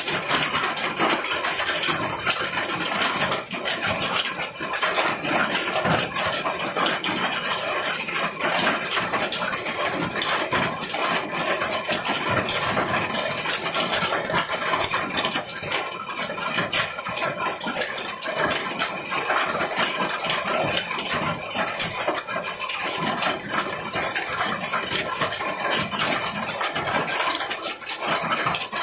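Hail pelting down: a steady, dense clatter of countless small hailstone impacts.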